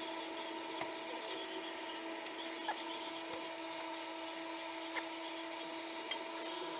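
A steady workshop hum with a few light clicks and taps scattered through it as snowblower parts are handled.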